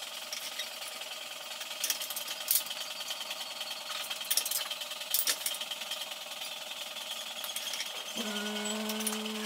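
Metal tools clinking and knocking against a steel part held in a bench vise, a few sharp clinks among quieter handling, over a steady mechanical drone. A low steady hum starts near the end.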